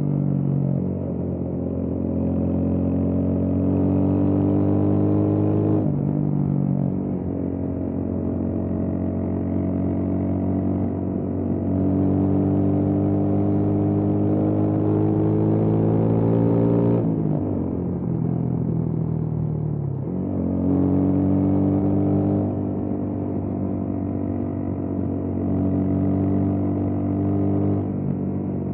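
Motorcycle engine under way, its pitch climbing as it pulls. It drops sharply at a gear change about six seconds in, climbs again, then falls away for about three seconds from seventeen seconds in before picking up again.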